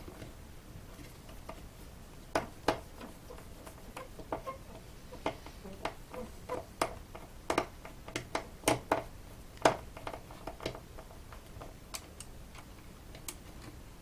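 Irregular sharp clicks and taps of a small screwdriver working the captive corner screws of an Intel NUC mini PC's bottom cover, with the case being handled between turns.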